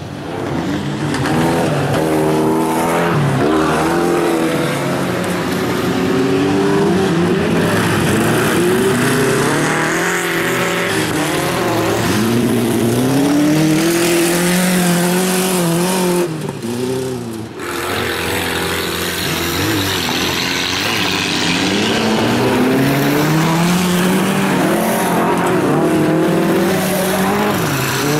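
VW Beetle race car's air-cooled flat-four engine revving hard on a gravel autocross track, its pitch climbing and falling back again and again through the gears. About two-thirds of the way through the revs drop away briefly, then climb again.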